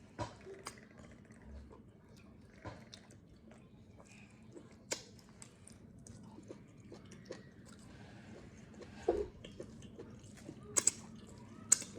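Close-up eating sounds of a person chewing a mouthful of eba with spinach vegetable soup and meat, with irregular wet mouth clicks and smacks, a few sharper ones near the end.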